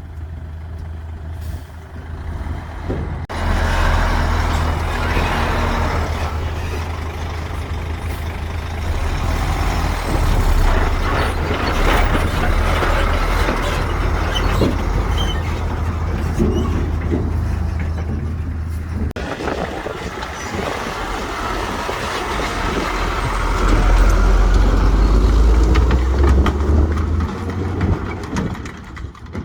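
Heavy earthmoving machinery working: the diesel engines of a bulldozer and dump truck running with a deep, steady rumble and scattered knocks. The sound changes abruptly about three seconds in and again about two-thirds of the way through.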